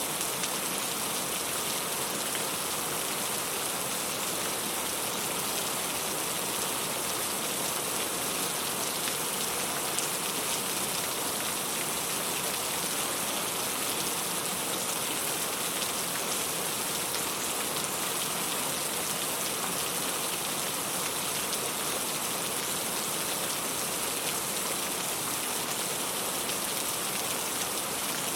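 Steady rain falling, an even, unbroken hiss that does not change over the stretch.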